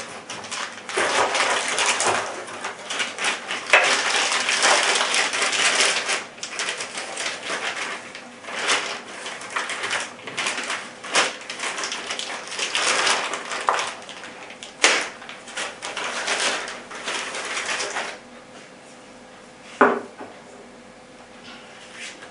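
Unboxing handling noise: packaging rustling and crinkling in irregular bursts, with a few sharp clicks and knocks, the loudest about 15 and 20 seconds in.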